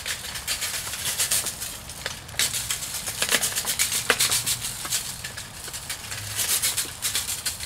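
A seasoning shaker shaken hard over food, giving rapid rattling bursts with short pauses between them.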